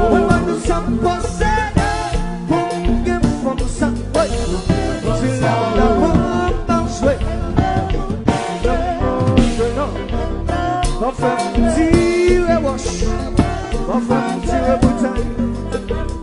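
Haitian konpa band playing live: a man sings lead over a driving drum kit beat, with guitar and keyboards.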